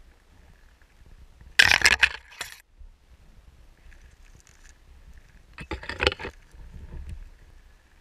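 Two bursts of crunching, scraping noise, about a second each and a few seconds apart, from a person moving through snow and bare twigs, the first one louder.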